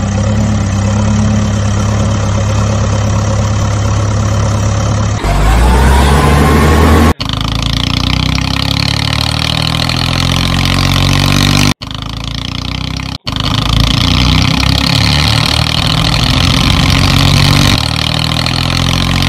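Vehicle engine sound effects added over the footage rather than made by the toys. The engine runs steadily in several pieces joined by sudden cuts and revs up with a rising pitch about six seconds in.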